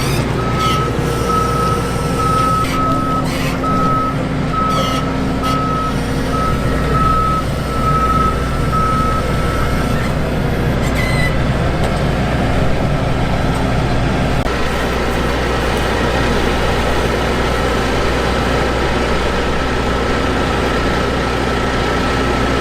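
Crawler-track combine harvester's engine running with a steady low rumble, a warning beeper sounding at an even pace over it for about the first ten seconds. The beeping then gives way to a fainter steady tone, and a few knocks come in the first seconds.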